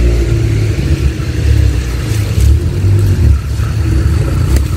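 Wind buffeting the phone's microphone in a loud low rumble, with a brief rustle of plastic sheeting about two seconds in.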